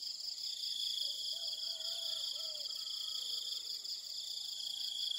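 Steady, high-pitched chorus of insects at dusk, shrill and continuous. A faint call comes a few times in quick succession from about a second in.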